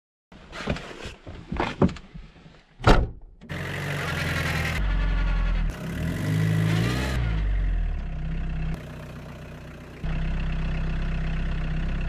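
Hymer motorhome's engine running and pulling away on a snowy road, rising and falling in pitch in several short takes. A few sharp knocks come in the first three seconds before the engine is heard.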